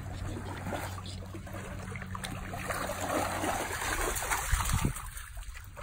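Lake water sloshing and splashing as a dog paddles and then wades through the shallows. The splashing gets louder about three seconds in as it reaches shallow water.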